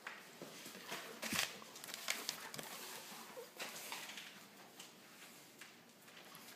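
A puppy's claws clicking and tapping irregularly on a hardwood floor as it walks about, with a single thump about a second and a half in.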